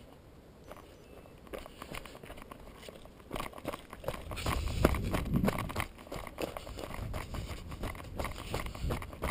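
Mountain bike rolling off asphalt onto a rocky dirt trail: the tyres crunch over loose stones and the bike rattles with dense irregular clicks. It is quiet at first and gets louder from about three seconds in, with a low rumble on the roughest stretch.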